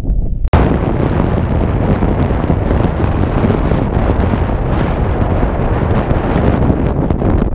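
Wind buffeting the camera microphone, a loud, steady rumble of noise over choppy water, starting abruptly about half a second in.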